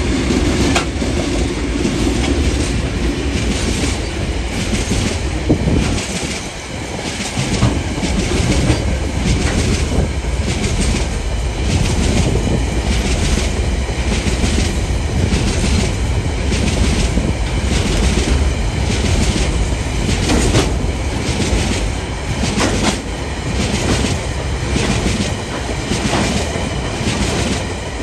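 Container freight train rolling past close by, its wagon wheels clattering over the rail joints in a steady, repeating clickety-clack over a constant low rumble. The locomotives' diesel engines fade in the first second or so.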